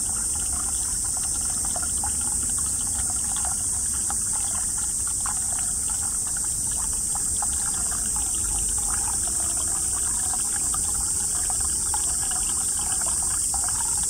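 Thin stream of spring water pouring from the end of a plastic pipe and splashing into a shallow rocky pool: a steady trickle, the flow reduced because the mountain source is drying up in drought. A steady high-pitched hiss runs above it.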